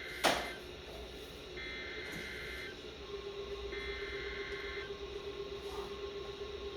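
Emergency Alert System SAME header data bursts heard over radio hiss: a sharp click, then two harsh warbling digital data bursts, each about a second long with about a second's gap. The bursts are the coded header that announces a Special Marine Warning.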